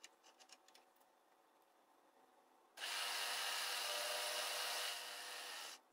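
A milling machine's cutter spot-facing a hole in a small metal part, a steady cutting noise. It starts abruptly about three seconds in, eases slightly near the end and stops abruptly. It is preceded by a few faint clicks.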